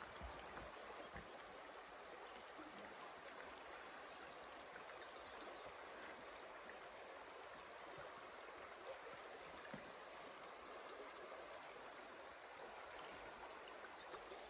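Faint, steady rush of a wide, shallow river rippling over gravel.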